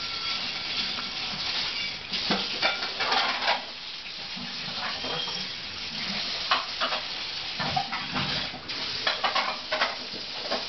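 Dog licking and eating food laced with cough medicine from a dish: irregular wet clicks and scraping.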